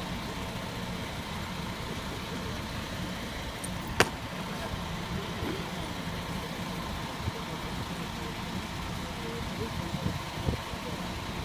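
Diesel engine of a parked coach idling steadily at its stop, left running while stationary. A single sharp click sounds about four seconds in.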